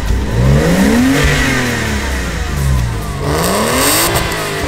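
Porsche Boxster 986's 2.5-litre flat-six revved twice while stationary, the pitch climbing from idle and dropping back each time.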